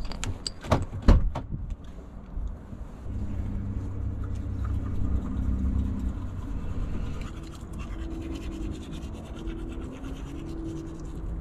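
A few sharp knocks in the first second and a half, then teeth being brushed over a steady low hum that shifts a little higher after about seven seconds.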